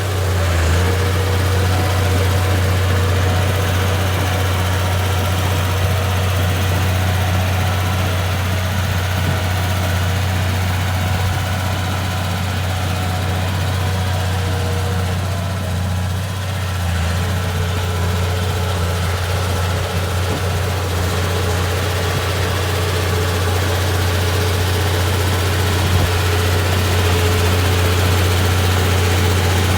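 Komatsu D31P bulldozer's diesel engine idling steadily with a deep, even hum.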